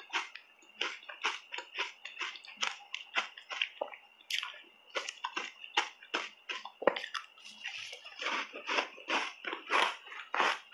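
Close-miked wet chewing and lip-smacking of a soft cupcake coated in matcha powder: quick wet mouth clicks, about three or four a second. A fresh bite is taken about six seconds in.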